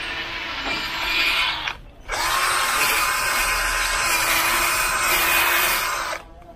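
Ingco cordless drill spinning a foam polishing pad over a plastic headlight lens, buffing it with rubbing compound to clear yellowing and haze. The motor whines steadily, stops briefly about two seconds in, starts again louder, and cuts off just before the end.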